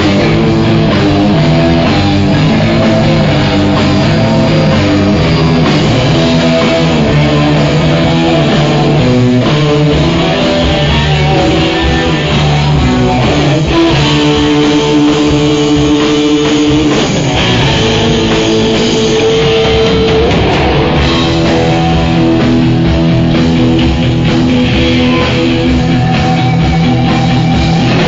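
A rock band playing live and loud: electric guitar over a drum kit, with held notes and a sliding pitch a little past the middle.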